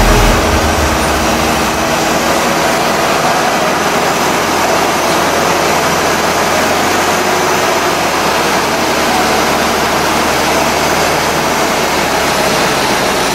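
Steady, loud engine and winch noise as an off-road truck is hauled up a muddy slope on a winch line.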